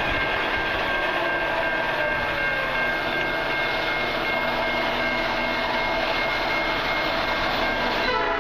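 Approaching freight train making a steady rumbling noise. Near the end, the lead locomotive's Nathan P3 air horn starts to sound.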